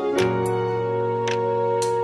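Slow background music: held notes that ring on, with a few new notes struck about a quarter second in and again near the end.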